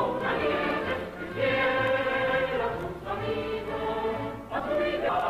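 Music with a choir singing long held chords over a steady bass line.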